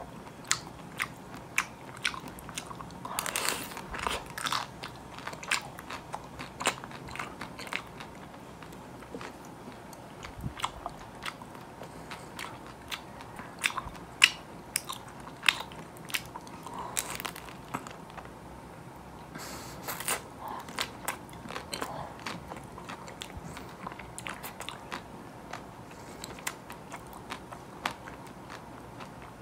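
Close-miked bites into a nut-covered, chocolate-coated ice cream bar: the hard chocolate shell and nut pieces crack and crunch in many sharp crackles, with chewing in between.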